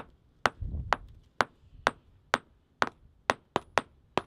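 Small hand hammers striking fieldstones to knock them into smaller, flat-sided pieces: sharp clinking stone-on-steel strikes, about two a second. From about three seconds in the strikes come closer together, as two people hammer at once.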